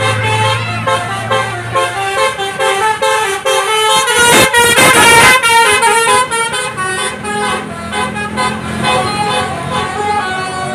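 Bus telolet horn, a multi-tone musical air horn, playing a quick tune of short stepped notes over a bus engine running. About four seconds in there is a loud, harsh burst lasting over a second, the loudest moment.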